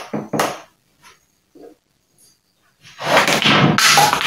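Plastic tubing being pushed and worked onto a pipe fitting: a few short knocks and ticks, then a loud squeaky rubbing lasting nearly two seconds from about three seconds in.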